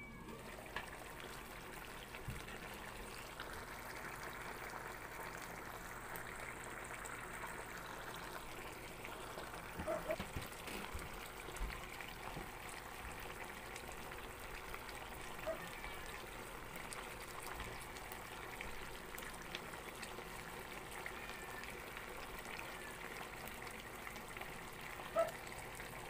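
Fish steaks simmering in sauce in an uncovered pan: a steady sizzle and bubbling, with a few light clicks.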